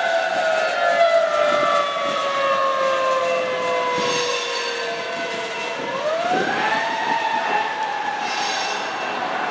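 Loaded coal hopper cars rolling past with steady wheel rumble and faint clatter. Over it an emergency-vehicle siren slowly falls in pitch, then rises again about six seconds in and holds.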